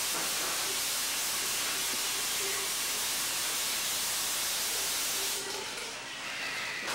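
Tap water running hard into a sink, a steady hiss that stops about five and a half seconds in and starts again near the end.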